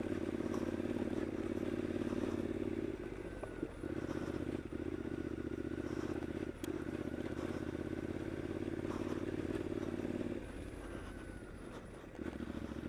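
2015 Triumph Scrambler's 865 cc air-cooled parallel-twin engine running under throttle along a rutty dirt track, with a few brief knocks. The engine eases off about ten seconds in, then picks up again near the end.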